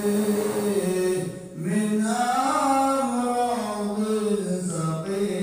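A man's voice chanting a devotional Islamic recitation into a microphone, holding long notes that slowly rise and fall in pitch. There is a short pause for breath about a second and a half in.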